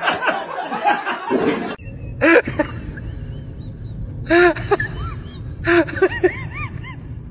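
People laughing: loud laughter and voices at first, then after a cut, short bursts of rising-and-falling laughter about two, four and a half, and six seconds in, over a steady low hum.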